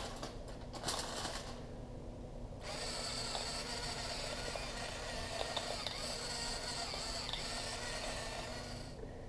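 Pepper mill grinding pepper onto the ribs for about six seconds, starting a couple of seconds in, after a few brief rustles.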